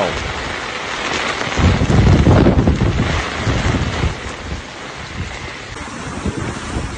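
Heavy rainstorm: driving rain and wind hiss, with a loud low rumble that swells about a second and a half in and dies away by about three seconds.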